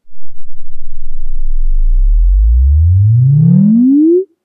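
REW logarithmic sine sweep played through SVS PB-3000 ported subwoofers: a loud low tone rising steadily in pitch, with fainter overtones above it in the second half, cutting off suddenly near the end.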